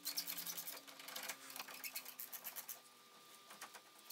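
Half-inch ratchet clicking rapidly and faintly as it winds out a loosened brake caliper carrier bolt. The clicks thin out and stop about three seconds in.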